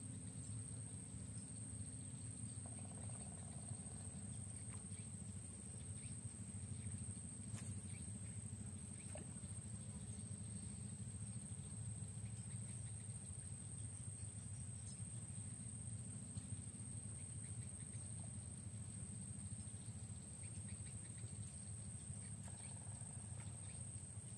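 Quiet outdoor ambience: a steady, high-pitched insect drone over a low, steady rumble, with a few faint ticks.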